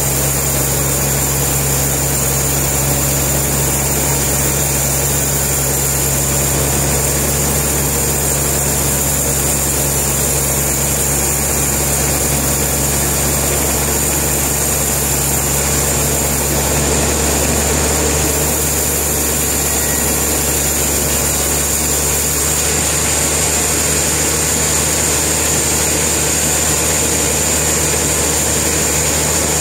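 Sawmill machinery running steadily: a loud, continuous engine drone with a low hum and a faint high whine, its low hum shifting slightly about two-thirds of the way through.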